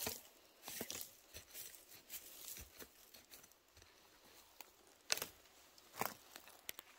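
Faint, scattered rustling and crackling of dry forest litter and twigs being stepped on or handled, with two louder cracks about five and six seconds in.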